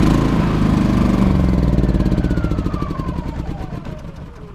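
Champion 3100-watt inverter generator's gasoline engine, just fired by remote start after months of storage, running hard at first. Over the last second and a half it slows, with a falling pitch, and dies away: a stall, which the owner puts down to the carburettor having been run dry of fuel.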